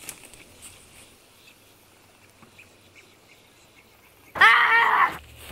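Faint outdoor background, then about four seconds in a short, loud, wavering cry whose pitch rises and falls, lasting under a second.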